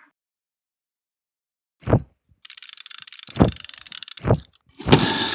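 Hand-made foley effects from classroom objects: after a stretch of silence comes a single thump, then a crackling, rustling hiss broken by two more thumps, which swells into a louder hiss near the end.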